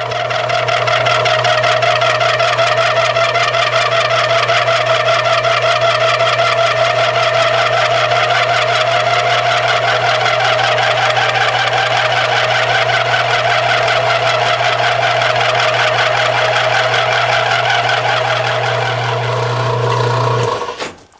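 Milling machine running an end mill through a pass on a metal crosshead workpiece: a steady motor hum under a loud, fast-warbling pitched cutting whine. The cut stops about twenty seconds in.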